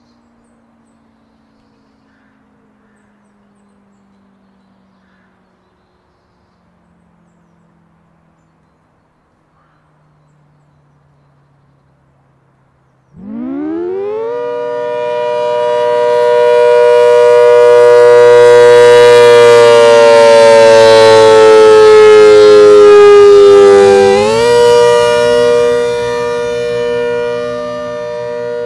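ACA Hurricane outdoor warning siren starting up about halfway through, after a faint tone slowly falling in pitch. It climbs quickly to a loud, steady wail of several tones together, which sags slightly in pitch and then jumps back up near the end.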